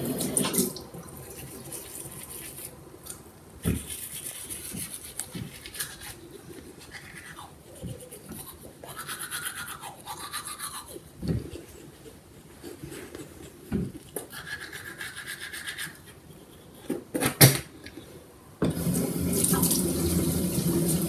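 Teeth being scrubbed with a toothbrush, a rough brushing hiss that comes and goes in short spells. A sharp knock comes near the end, then a tap is turned on and water runs steadily.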